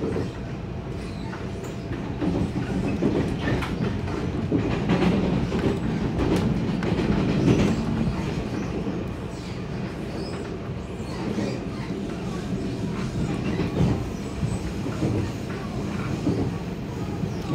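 Passenger train running, heard from inside the carriage: a steady low rumble with wheels clicking and clacking over the rails. It grows a little louder about two seconds in.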